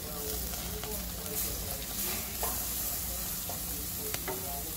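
Steaks sizzling on a gas grill's grate over open flame, with a few sharp clicks of metal tongs against the grate.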